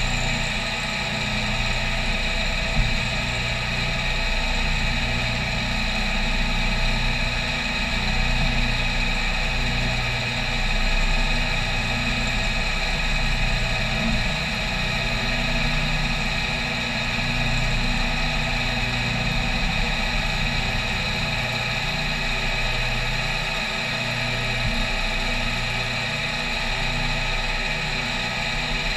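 CNC milling machine spindle and end mill cutting aluminium plate under flood coolant in an adaptive clearing pass: a steady whine made of several fixed tones, with a low pulsing that swells and fades every couple of seconds.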